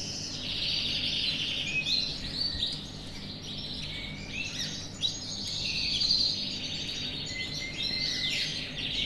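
Domestic canaries singing in a room of breeding cages: continuous, overlapping rapid trills and chirps from several birds.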